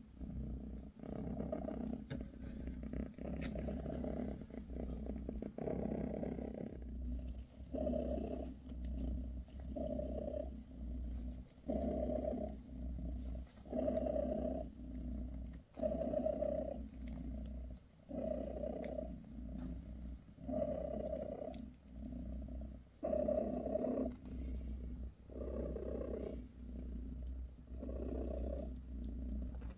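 British Shorthair mother cat purring steadily while nursing her newborn kittens; the purr swells and fades with each breath, about every second and a half.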